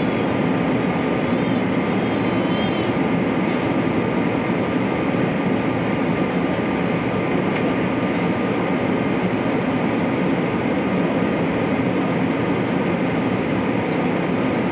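Steady cabin noise inside an Airbus A380 in flight: the even rush of its Rolls-Royce Trent 900 engines and the airflow over the fuselage, with a faint steady whine.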